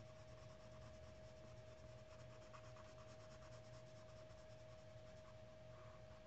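Faint scratching of a colored pencil shading on paper in quick, repeated back-and-forth strokes, with a faint steady hum underneath.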